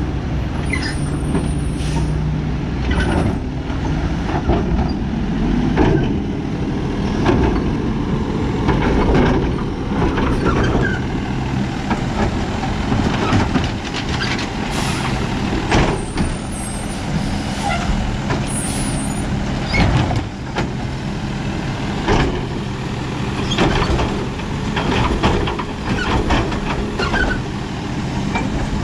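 Peterbilt split-body garbage truck's diesel engine running steadily, with air-brake hisses and many short clanks and knocks.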